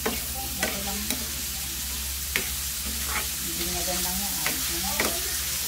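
Diced pork sizzling in oil in a non-stick pan as a spatula stirs it, the utensil scraping and knocking against the pan at irregular intervals.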